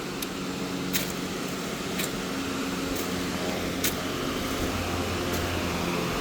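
An engine or motor running steadily with a low hum, with sharp clicks about once a second.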